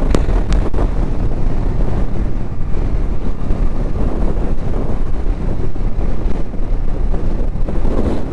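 Wind buffeting the microphone of a moving motorcycle, with the single-cylinder engine of a Bajaj Dominar 250 running underneath. A few light knocks in the first second.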